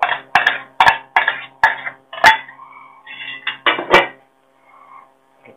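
Stainless-steel mixer-grinder jar knocked against a steel plate while powdered sugar is shaken out of it: a run of ringing metallic clanks, about two or three a second, then a couple more near four seconds in.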